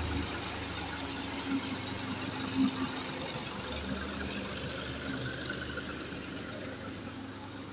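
Farm tractor engine running steadily while it works the mud, growing a little fainter near the end.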